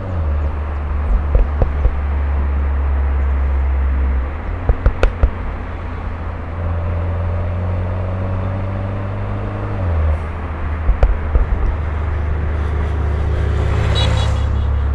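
Turbocharged Mini Cooper engine pulling through the gears: the engine note drops at three gear changes, and each is followed by a short, loud cluster of exhaust pops. A brief hiss near the end.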